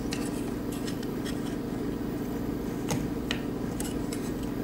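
A few light clicks and taps as a battery and its clip leads are handled and fitted into a plastic battery holder, over a steady low hum.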